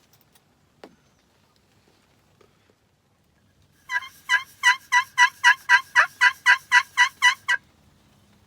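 A run of about a dozen evenly spaced turkey yelps, about three a second, starting about four seconds in and stopping shortly before the end.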